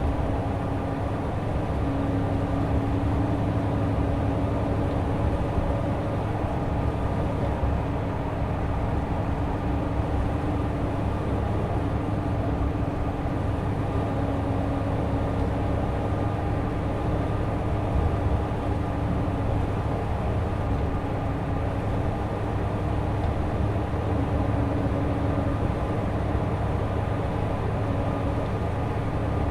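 Mitsubishi Fuso Aero Ace coach's diesel engine and tyres at a steady cruising speed: a continuous drone with a steady hum over road noise, with no gear changes or changes in engine pitch.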